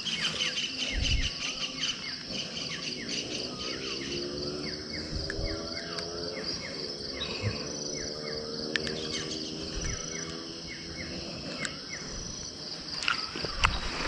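Night chorus of crickets and other insects shrilling steadily, with many short, rapidly repeated chirping calls over it. A lower, wavering call with several overtones sounds for a few seconds in the middle, and there are a few soft knocks from handling.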